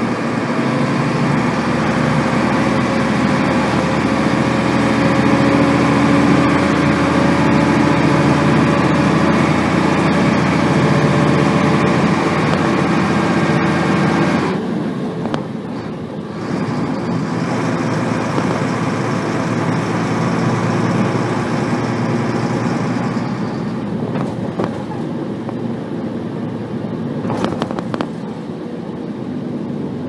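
Inside a 1990 Nissan Diesel RM bus (P-RM81G), its FE6 six-cylinder diesel and gearbox running hard under way with a whine, the bus noted for gear whine and high revving. The note rises slowly, then drops sharply about halfway through, and the bus runs on more quietly.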